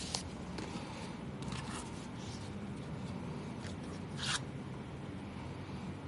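A few short scrapes and rustles from handling parts during the repair work, the loudest about four seconds in, over a steady low hum.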